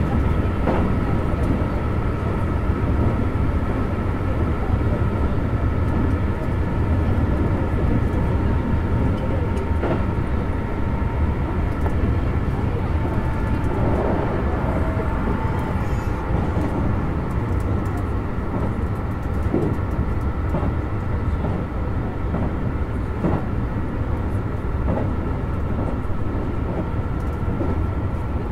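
Keikyu New 1000 series (1800 subseries) electric train running, heard from inside the front car: a steady rumble of wheels on track with a faint steady motor whine and occasional light clicks from the rails.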